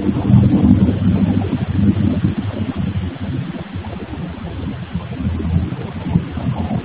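Granite workshop machinery running, a loud, uneven low rumble with a steady hum underneath, heard through a security camera's microphone.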